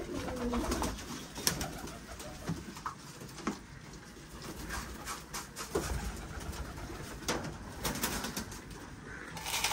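Domestic pigeons cooing in a loft, with scattered light clicks and knocks at irregular intervals.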